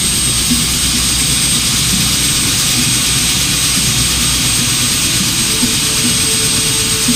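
Bell 206 JetRanger III helicopter's turbine engine running on the ground: a loud, steady rush of noise with a thin, constant high whine.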